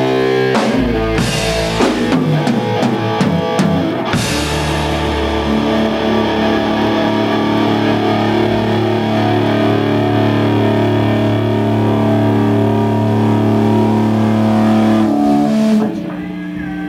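Closing bars of a rock song: drum kit and cymbal hits over electric guitar, then a long held chord left ringing, which drops away about sixteen seconds in.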